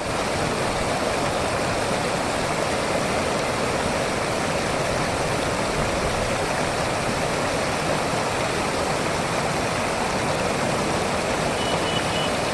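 Steady, unbroken rush of floodwater.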